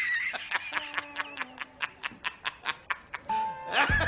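A man laughing hard in rapid, evenly spaced bursts, about four to five a second, with a louder burst near the end.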